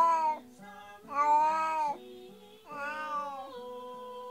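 Domestic cat meowing: three long, anguished cries, each rising then falling in pitch, about a second and a half apart. She is calling out while left alone, which the owners take for distress over her housemate being taken away for surgery.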